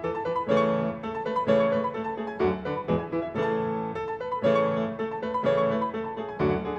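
Background music: piano playing a gentle melody with chords, notes struck in a steady rhythm.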